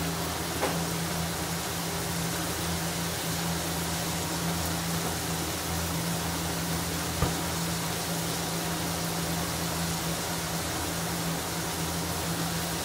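Fish pieces deep-frying in a wok of hot oil: a steady sizzle of bubbling oil over a constant low hum, with a sharp pop about a second in and another about seven seconds in.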